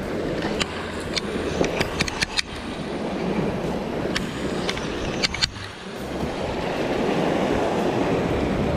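Sea surging and washing against a rocky shore, a steady rushing that swells near the end, with a scatter of sharp clicks and knocks in the first half or so.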